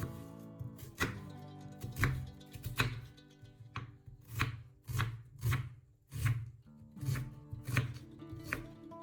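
A knife chopping food on a cutting board, about a dozen even strokes roughly one every two-thirds of a second, over soft background music.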